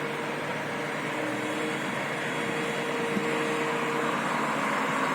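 Steady street noise with a motor vehicle engine running.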